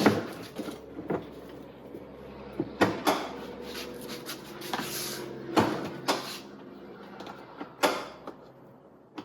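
Husky Build-Out modular plastic toolboxes being pressed down and latched or released: a series of sharp plastic clicks and knocks, several in all, with a faint steady hum underneath.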